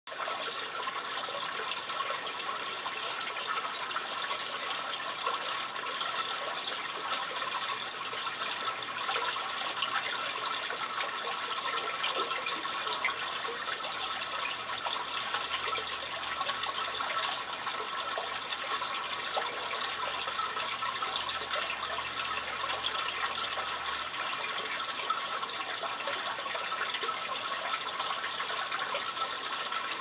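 Water running in a sewer beneath a street grate: a steady rushing with fine trickling and splashing.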